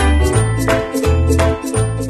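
Background music with a steady beat: a bass line changing note about every half second under a bright tinkling melody.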